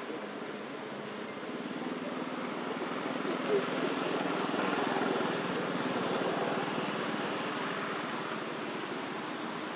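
Distant engine noise, a steady rush that swells towards the middle and then eases off, with one brief short sound about three and a half seconds in.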